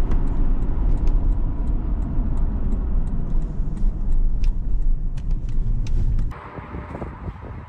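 Supercharged Toyota Land Cruiser V8 driving, a steady low rumble of engine and road noise with scattered light clicks. About six seconds in it cuts off suddenly to a much quieter sound.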